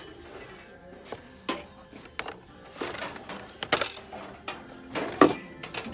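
Irregular knocks and clinks of picture frames and wooden signs being shifted against each other on a metal store shelf, the loudest about four and five seconds in.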